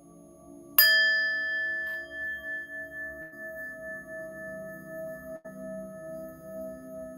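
A singing bowl, already ringing, is struck again about a second in and rings on in several clear tones that fade slowly with a wavering, pulsing hum.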